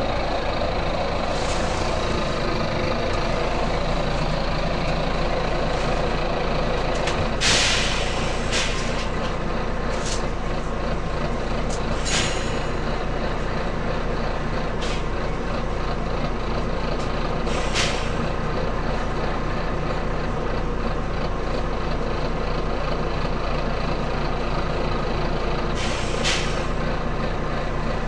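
Volvo B9TL double-decker bus running steadily, with several short, sharp hisses of compressed air from its air system spread through, the loudest about seven seconds in.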